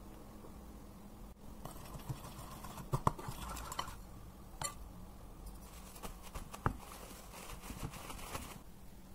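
A wire whisk mixing egg, water and flour batter in a bowl, scraping with light clicks against the side in two spells of a few seconds each.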